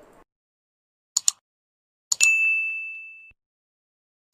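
Subscribe-and-like button sound effects: a quick double mouse click about a second in, then a click with a bright notification-bell ding that rings and fades over about a second, and another double click near the end.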